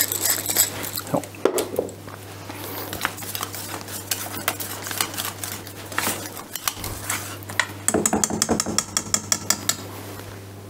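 Metal whisk stirring a thick quark and yogurt dip in a stainless steel bowl, scraping and clinking against the bowl's sides; about eight seconds in, a quicker run of clinks.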